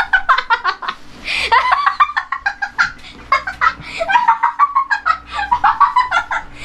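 People laughing in a sustained fit: rapid, repeated bursts of laughter with brief catches of breath between them.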